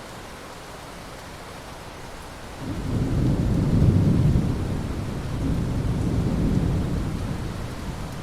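Steady rain, then a rolling thunder clap about a third of the way in: a low rumble that comes up suddenly, peaks, swells a second time and dies away.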